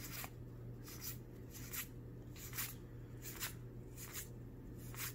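Trading cards from a freshly opened booster pack being slid one past another: a soft swish of card on card about every 0.8 seconds, seven in all, over a faint steady low hum.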